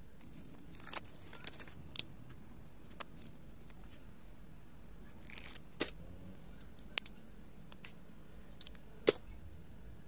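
Handling noise of school supplies: scattered sharp clicks and taps, loudest about nine seconds in, with brief crinkling of plastic packaging and rustling paper as a highlighter pack and a spiral notebook are handled.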